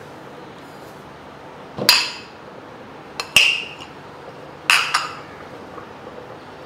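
A steel spoon tapped three times, sharp clinks with a brief ring about a second and a half apart, knocking garden cress seeds into a clay pot of gruel.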